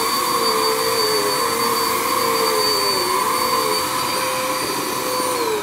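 Bissell PowerForce Compact upright vacuum cleaner running on a rug, a steady motor whine with a thin high tone over a rush of air, its pitch dipping briefly a few times, a strain the owner suspects is a clog. Near the end the motor begins to wind down, its pitch falling.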